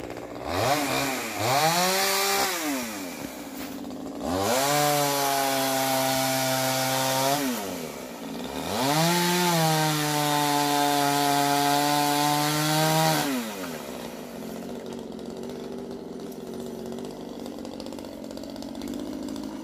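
Chainsaw in a climber's hands up a spruce, revved high three times as it cuts branches: a short rise and fall, then two held runs of several seconds each. After that it drops back to a steady idle for the last few seconds.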